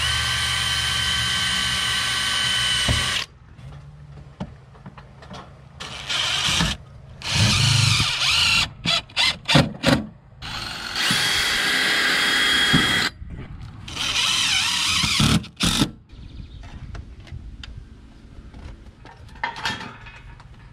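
DeWalt 20V cordless drill/driver driving screws through a metal flashing strip into the wall: about six runs of motor whine, each one to three seconds long, with a string of quick trigger blips near the middle.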